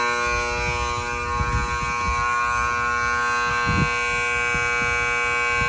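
A steady buzzing drone with many overtones, holding one pitch throughout, over a low rumble with a few dull bumps, the strongest about four seconds in.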